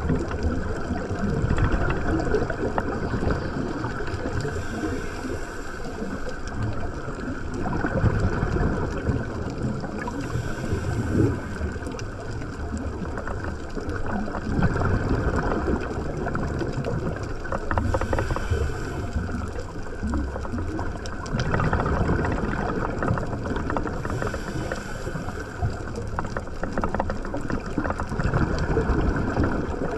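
Underwater ambience picked up through a camera's waterproof housing: a steady, muffled rush and gurgle of water, with a faint higher hiss that comes and goes every several seconds.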